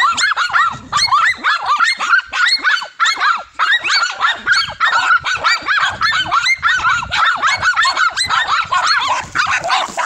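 A pack of dogs barking nonstop at a monitor lizard they hold at bay: a rapid, overlapping stream of sharp, high-pitched yaps and barks.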